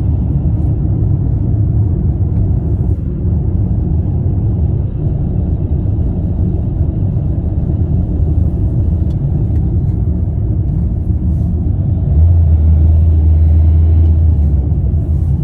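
Steady low road and engine rumble of a car driving, heard from inside the cabin; a deeper drone swells up about twelve seconds in and holds for a few seconds.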